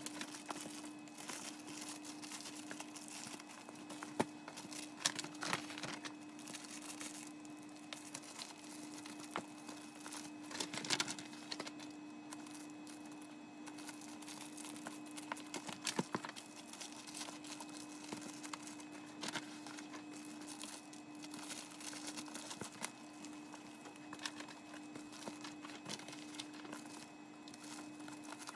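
Clear plastic product wrappers crinkling and rustling as they are handled, with irregular small clicks and taps. A faint steady hum runs underneath.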